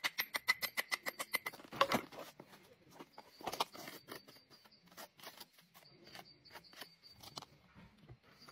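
Hammer tapping rapidly on natural stone, about six light strikes a second with a faint ring, for the first second and a half. After that come a few louder single knocks and scattered faint clicks and scrapes as stones are set into mortar.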